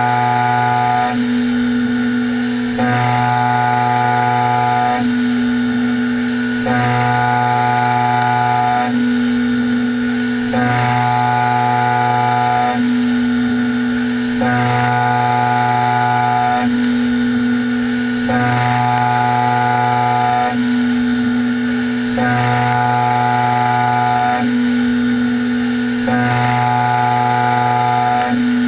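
CoroMill Plura HFSM solid carbide end mill side-milling a metal block on a CNC machining centre with a WaveForm toolpath. The cutting makes a steady pitched hum that switches back and forth between two tones, one full cycle about every four seconds, as the tool repeatedly sweeps through its passes.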